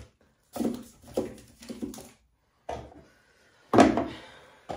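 Soaps and toiletries knocked and set down in a bathroom vanity drawer: a few short clatters, then a single louder knock about a second before the end.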